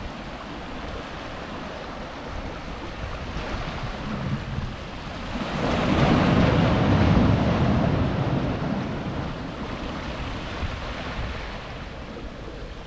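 Sea waves washing against breakwater rocks, with wind buffeting the microphone. One surge builds about halfway through and then dies away.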